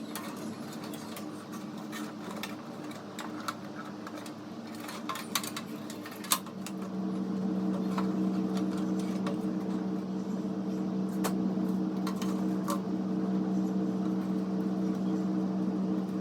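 Scattered clicks and taps of cables and parts being handled and plugged in inside an open desktop PC case, over a steady mechanical hum that gets louder about seven seconds in.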